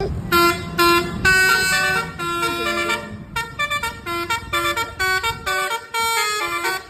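Telolet bus horn, a set of multi-tone air horns, playing a tooting melody of several notes at once. Two short blasts come first, then a longer held chord, then a run of quick short notes.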